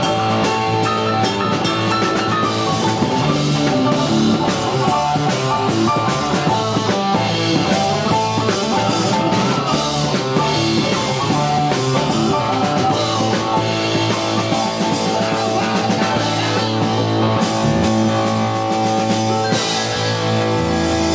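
Rock music with drum kit and guitar, playing continuously with a steady beat.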